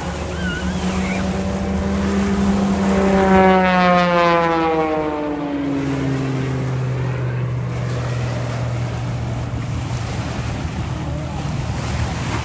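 An engine passing by, its steady low tone dropping in pitch as it goes past about five seconds in, loudest around three to four seconds in. Wind and waves keep up a steady rushing underneath.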